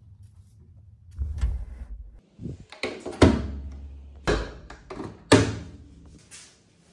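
Fabric rustling as bedding is stuffed into the drum of an Electrolux front-loading washing machine, then three loud thunks about a second apart as the machine's door is shut.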